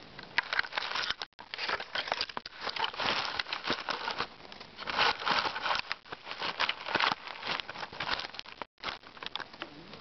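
Close rustling and crackling of leaves, twigs and forest-floor litter against the microphone as the camera is handled and moved through the undergrowth. The sound cuts out completely for a moment twice, about a second in and near the end.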